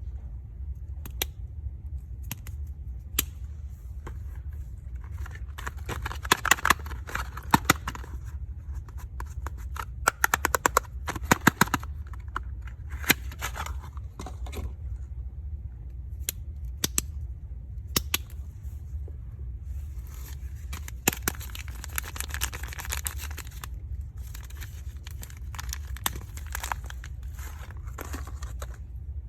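Soap packaging being unwrapped and handled: plastic crinkling in patches, with many sharp clicks and taps. There is a quick run of clicks about a third of the way in, over a steady low hum.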